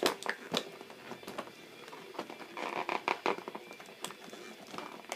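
Plastic blister packaging crinkling and clicking as an action figure and its accessories are worked out of it: scattered sharp clicks, with a denser crinkle about three seconds in.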